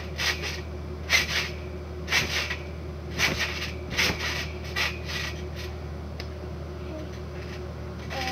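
Someone bouncing on a backyard trampoline: a short rasping creak from the mat and springs at each landing, about once a second, fading out after about five seconds, over a steady low hum.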